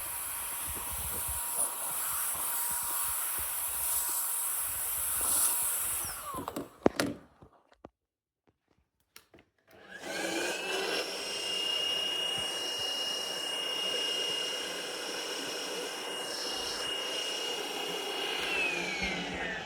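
Two cordless handheld vacuum cleaners run one after the other, vacuuming up a pile of dirt. The first runs with a steady whine and winds down about six seconds in, followed by a knock and a short silence. The second then spins up with a rising, higher whine, holds it, and winds down with a falling pitch near the end.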